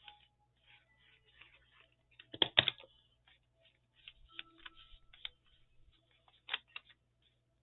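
Craft materials being handled on a work table: scattered light taps and rustles, a louder clatter about two and a half seconds in, and a sharp tap about six and a half seconds in.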